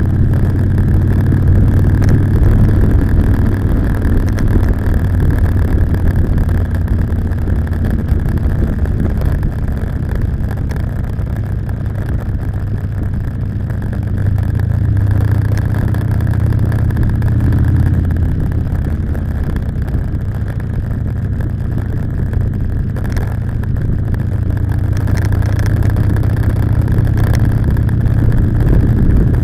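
Motorcycle engine running while riding, a steady low rumble that eases and picks up again through the ride.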